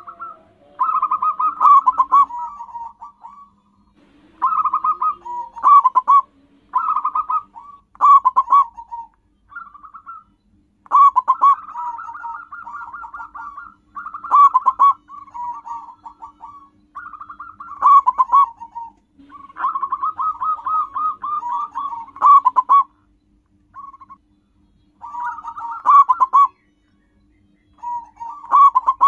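Zebra dove cooing: a string of phrases of quick, stuttering staccato coos, each a second or two long, with short pauses between them.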